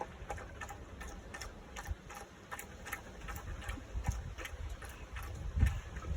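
Dog lapping water from a water fountain: a steady run of quick, regular wet clicks, about three a second.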